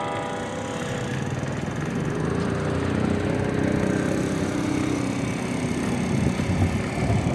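Amsterdam city tram approaching across the square, its rolling and electric drive hum growing louder over the last few seconds. The palace tower bells' last notes fade out in the first second.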